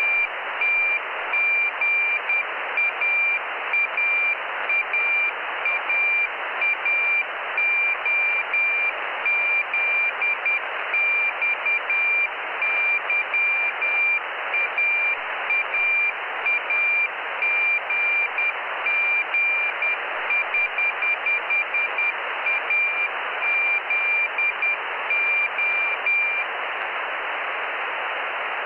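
Morse code (CW) telemetry beacon from the Jugnu CubeSat heard through a radio receiver: a single high beeping tone keyed on and off in dots and dashes over steady receiver hiss. The keying stops near the end, leaving only the hiss.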